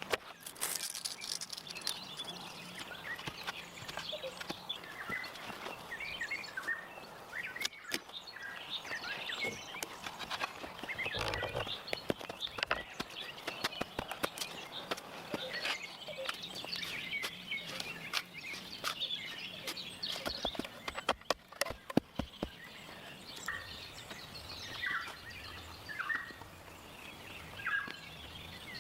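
Birds chirping with many short calls, over a light outdoor background, with scattered sharp clicks and knocks, a few of them louder about a third of the way in and again past the middle.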